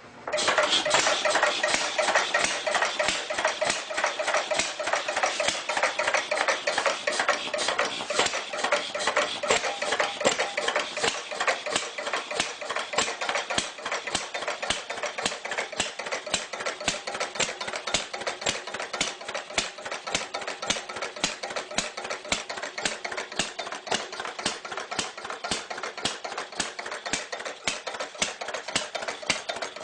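Old engine running with a clunky, fast, even knocking rhythm. It starts abruptly just after the beginning and keeps a steady pace throughout.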